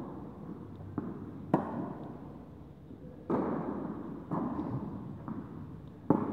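Tennis ball struck by rackets and bouncing on the court during a rally: a string of sharp pops every second or so, each ringing on in the echo of an indoor tennis hall.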